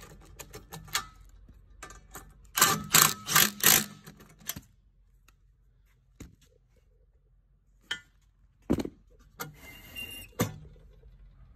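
Impact driver hammering in short rattling bursts as it runs bolts down to fasten a metal mounting bracket to the bottom of a lithium golf-cart battery: about four bursts a few seconds in, then another burst near the end.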